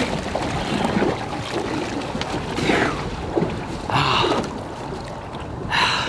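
Sea water splashing and sloshing against the tube of an inflatable boat as a snorkeler swims up alongside, with a few louder splashes.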